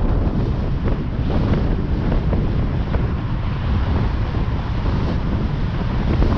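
Heavy, steady wind buffeting on the microphone of a camera on a moving car, over low road rumble.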